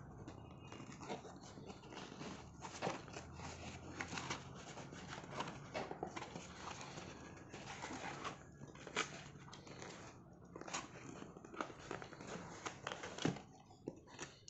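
A cardboard shipping box being torn open by hand: irregular ripping, scraping and crackling of the cardboard flaps and tape, with a few sharper snaps.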